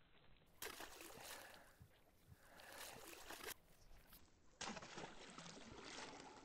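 Water splashing and sloshing at the surface beside a fishing boat as a hooked fish is played and netted. It comes in two spells of a few seconds each, with a short lull between.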